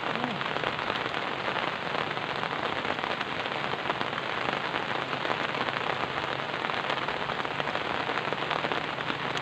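Steady rain falling, a dense, even hiss of countless drops.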